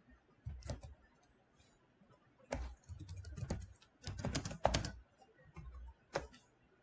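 Computer keyboard typing: several short bursts of rapid keystrokes separated by brief pauses.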